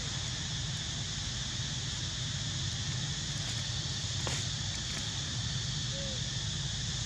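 Steady outdoor background: a constant high-pitched insect drone over low wind rumble on the microphone, with a faint click a little after four seconds and a brief faint squeak about six seconds in.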